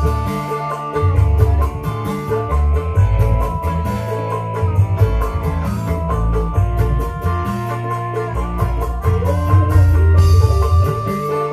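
Live dangdut band playing an instrumental through a large PA: drum kit and hand drums keeping a steady beat under electric guitars, a heavy bass line and held melody notes.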